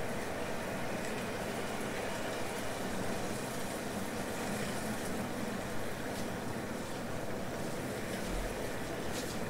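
Quiet outdoor film ambience, a steady soft hiss of environmental noise, played back through Polk Signature S55 tower speakers and picked up by a microphone in the room. A short low thud comes about eight seconds in.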